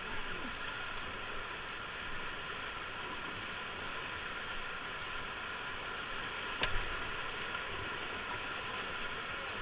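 Rushing whitewater of a river rapid, a steady wash of noise, with one sharp knock about two-thirds of the way through.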